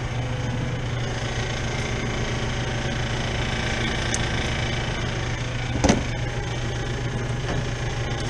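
Steady low hum of running machinery, with a single sharp knock about six seconds in.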